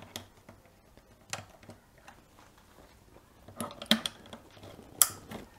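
Small scattered clicks and taps of hands handling wiring while an RJ12 cable is plugged into an R-Bus feedback module, with a few sharper clicks near the end.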